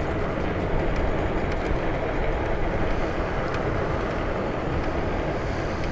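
Steady rushing wind on the microphone with road noise while riding an electric bike.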